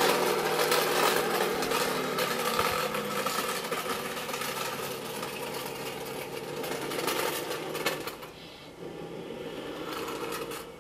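Radio-controlled Tamiya Scania R620 model truck with a snowplough driving away, its steady motor sound fading with distance and dropping off about eight seconds in.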